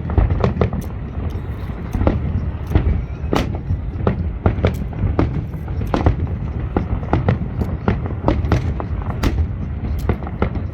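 Fireworks display exploding continuously: a rapid, irregular run of sharp bangs and crackles, several a second, over a constant low rumble of shell bursts.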